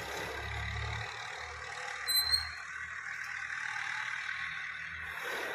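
Steady machine hum, with a brief high-pitched squeak about two seconds in.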